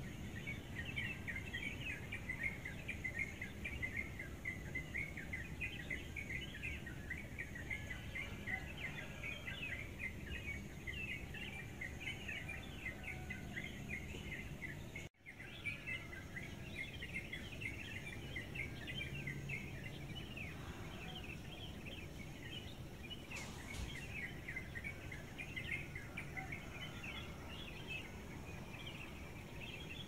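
Wild songbird singing a fast, unbroken stream of short, high chirping notes, breaking off for an instant about halfway through, over a low steady background rumble.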